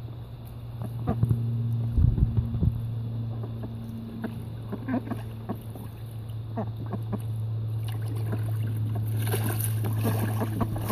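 Cayuga and Swedish ducks splashing and flapping their wings while bathing in a plastic kiddie pool. There are scattered splashes, a heavy flurry about two seconds in, and a burst of splashing near the end, all over a steady low machine hum.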